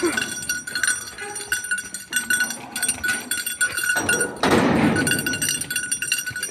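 Cowbell on a bucking jaripeo bull clanking and ringing irregularly as the bull jumps. A loud burst of noise comes about four seconds in.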